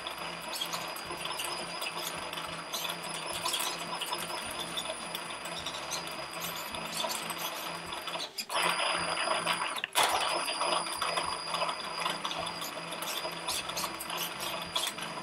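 The RACECAR/J's brushless drive motor, run by a VESC electronic speed controller under gamepad control, spinning the free wheels, with a steady high whine and gear noise. It gets louder for about a second and a half past the middle, then falls back.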